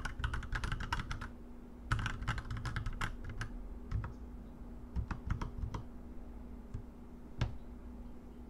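Royal Kludge RK87 mechanical keyboard typed on with force: fast runs of key clacks, a short break about a second and a half in, then slower, scattered keystrokes with one louder one near the end before the typing stops.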